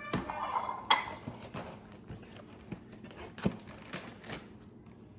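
Dry cereal being poured into a bowl and handled: a rustle with irregular light clicks and taps, the sharpest about a second in.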